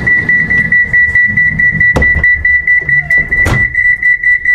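An Avanti West Coast train's door-closing warning beeper sounds a rapid, steady, high beeping, about four beeps a second: the doors are closing for departure. There is a sharp knock about two seconds in and a brief rush a second and a half later.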